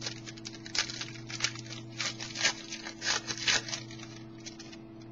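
Trading cards being handled and slid against one another in the hand, a series of about six quick papery swishes.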